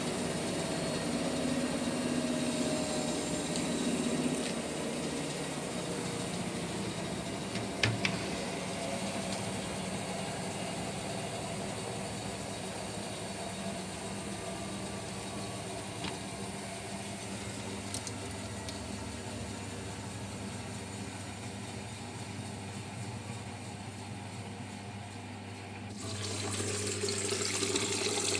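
Bosch Serie 6 front-loading washing machine running a cotton 60° cycle: water sloshing in the turning drum over a steady motor hum, with a sharp click about eight seconds in. Near the end water starts rushing in as the machine fills.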